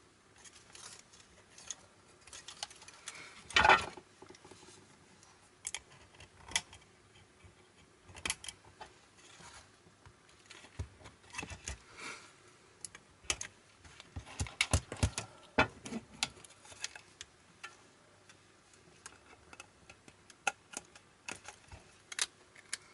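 Irregular small clicks, taps and rattles of a cassette deck's plastic and metal parts being handled and pried apart, with one louder knock about four seconds in and a busier run of clicks in the middle.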